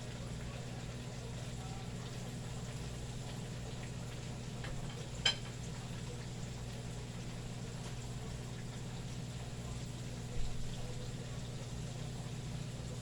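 Flour-coated chicken frying in hot oil, a steady sizzle over a low hum, with a sharp click about five seconds in and a knock about ten seconds in.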